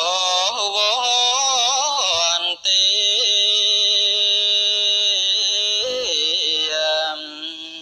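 A Buddhist monk's solo chant, amplified through a microphone. A single voice wavers up and down in pitch, holds one long steady note for about three seconds, then slides down to a lower note near the end.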